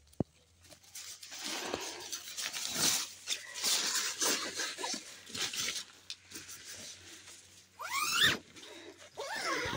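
Nylon tent fabric rustling and crinkling as it is handled, after a single sharp click near the start. Near the end come two short squeals that rise quickly in pitch.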